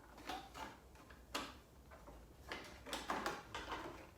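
Black plastic front trim of a BMW R1250 GS being lifted off the motorcycle: a scattered series of light plastic clicks and knocks, about half a dozen.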